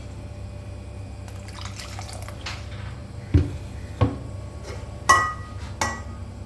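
Metal kitchen utensils knocking and clinking four times, the third strike the loudest and ringing briefly, over a steady low hum.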